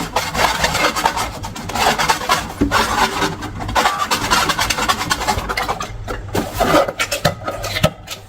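Long rubber balloons and slime being handled and rubbed: a dense, irregular run of quick rubbing and scraping strokes.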